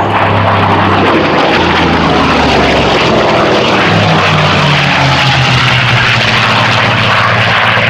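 Piston-engine air racers, a Hawker Sea Fury and then a P-51 Mustang, flying past at high power: loud, steady engine and propeller noise. The engine note falls in pitch as each goes by, and a second, higher note takes over about four seconds in.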